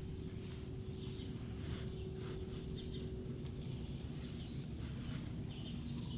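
Small birds chirping intermittently over a steady low rumble and a faint constant hum, with light handling noises as grease is worked by hand into a CV joint.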